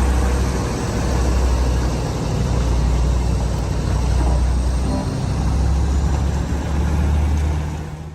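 A heavy vehicle's engine running steadily, with a deep low hum under a broad mechanical noise. It cuts off abruptly near the end.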